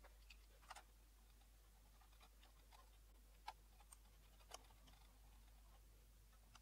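Near silence with a few faint, short clicks from hands handling the parts inside an opened LED projector.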